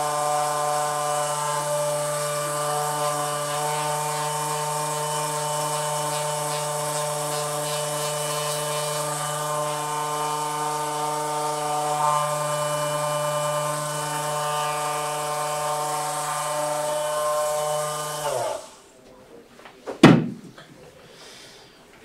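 Handheld electric massager running with a steady motor hum. It is switched off near the end, its pitch dropping as it winds down, and a single sharp knock follows.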